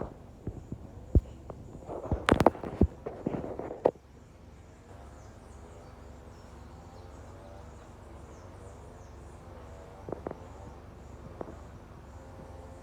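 Vehicle moving slowly along a rough dirt track. A cluster of sharp knocks and rattles comes in the first four seconds, then a steady low rumble, with faint high insect chirping and two more knocks near the end.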